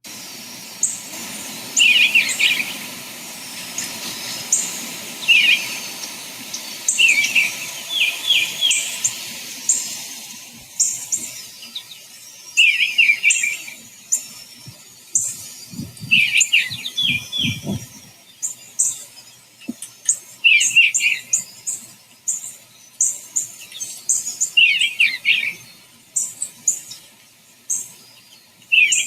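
Eastern bluebirds singing: short, soft warbled phrases repeated every second or few, with quick high chips from other birds in between and a few brief low sounds about halfway through.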